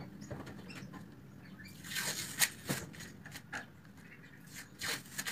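Light handling noises from an oak table-leg frame being touched and moved on a workbench: scattered small clicks and brief rubbing of hands on wood.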